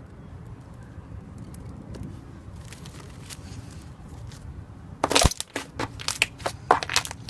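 Slime being squeezed and worked by hand, giving a run of sharp crackling pops that grow loud and dense over the last two seconds or so, with a low steady hum underneath.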